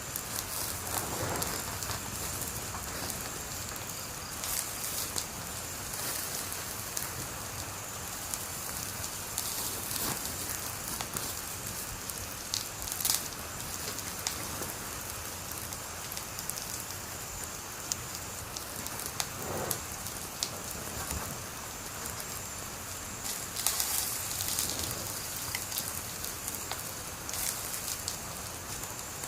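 Wood fire burning with a steady hiss and frequent small crackles, and now and then a louder pop, the sharpest about 13 seconds in.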